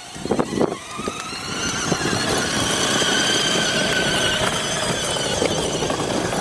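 Electric ride-on toy truck's drive motors and gearboxes whining in high gear, the whine rising in pitch about a second in as the truck picks up speed, then holding steady over the rumble of the wheels.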